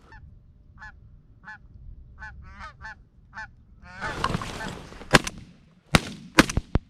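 Goose honks, about seven short calls in the first three and a half seconds. Then a brief rush of noise and a quick volley of about four shotgun shots in under two seconds, as the hunters shoot at incoming geese.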